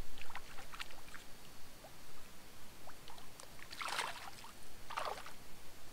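Hooked brook trout splashing at the surface while being played on a fly rod, with light sloshing and two louder splashes about a second apart near the end.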